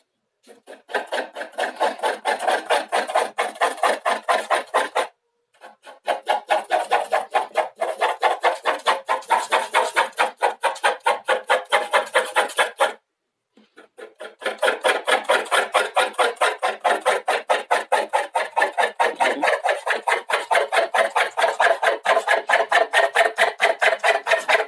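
Graphite pencil hatching on drawing paper: rapid back-and-forth scratching strokes, about five a second, in three runs broken by two short pauses.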